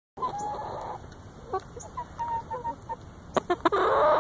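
A flock of hens clucking close by: a longer call in the first second, then short clucks. A few sharp taps come about three and a half seconds in, then a louder, drawn-out squawk that wavers in pitch.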